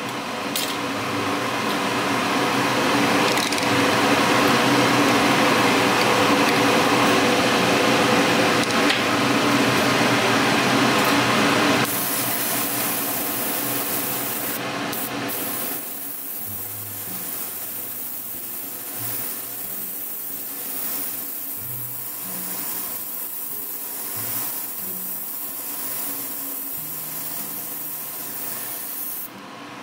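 Airbrush spraying with its compressor running: a loud, steady hiss of air for about twelve seconds, then a quieter steady hiss and hum.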